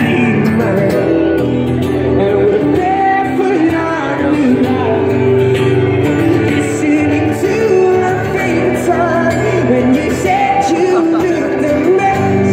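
A male singer performing a song live with a strummed acoustic guitar, amplified through a small amplifier.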